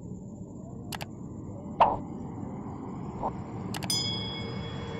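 A few sharp clicks, the loudest a little under two seconds in, then near the end a mouse click followed by a bright bell-like ding that rings for about a second: the sound effect of a subscribe-button animation. A steady low hum runs underneath.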